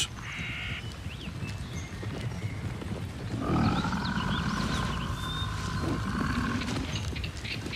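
European bison giving one long, drawn-out call that starts about three and a half seconds in and lasts about three seconds, over low forest ambience with faint bird chirps.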